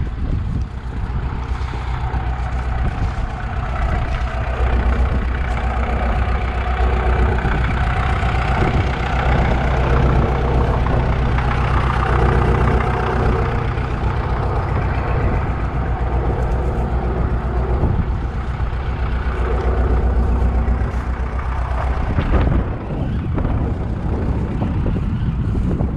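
Tractor engine running close by with a steady note that eases off about 22 seconds in, leaving wind on the microphone.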